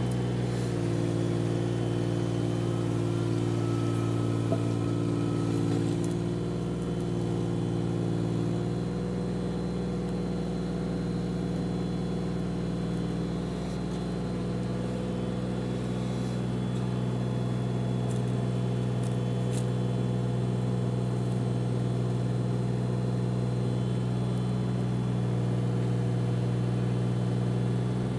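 JCB mini excavator's diesel engine running steadily while its arm holds a stone cross being lowered onto a plinth. A higher whine sits over the engine for the first nine seconds or so.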